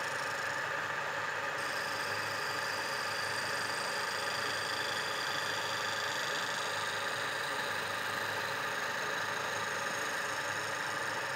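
An Induma knee mill's spindle running steadily with a four-insert face mill taking a cut across the surface of a metal test bar, the table driven by a newly fitted AL310 power feed.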